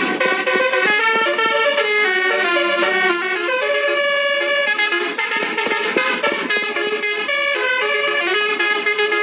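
Indonesian 'telolet' bus horn, a set of multi-tone air horns, playing a continuous melody: quick steps from note to note, often two notes sounding together.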